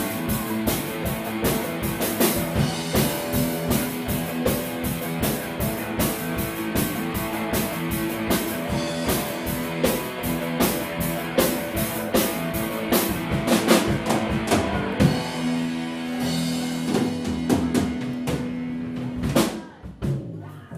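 Live rock band playing, with a drum kit beating steadily under electric guitars and bass. In the last few seconds the band holds one chord, then stops abruptly with a final drum hit near the end.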